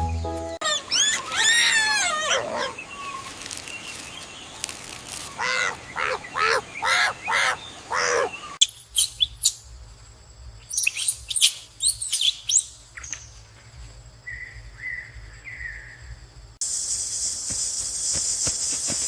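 Bird chirps and other animal calls in short separate bursts, with the sound changing abruptly a few times, then a steady high hiss from near the end.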